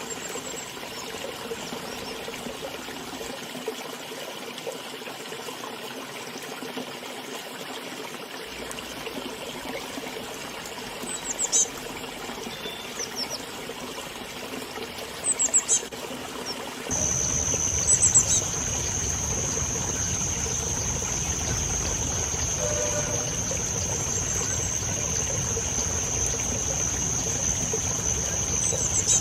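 A river flowing steadily, with small birds giving a few short, high chirps. About two-thirds of the way in, a steady high-pitched whine and a low rumble join the water sound.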